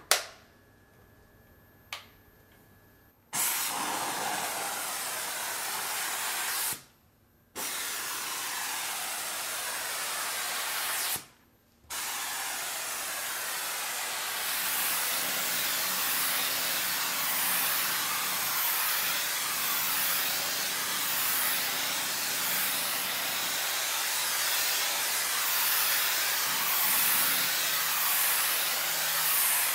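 Kärcher SC 4100 C steam cleaner releasing steam in a loud, steady hiss. A click comes first, then the steam starts about three seconds in, is cut off twice for under a second, and runs continuously through the second half.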